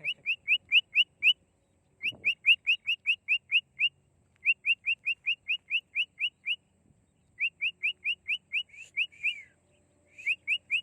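Cockatiel whistling: runs of quick, rising whistle notes, about five or six a second, broken by short pauses. Near the end come a few longer notes that bend down.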